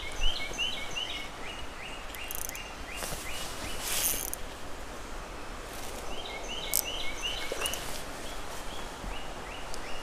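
A bird singing a short high phrase over and over, about three or four times a second, near the start and again through the second half. A few brief splashy rushes come around the middle, the loudest about four seconds in, as a hooked fish is fought on a spinning rod.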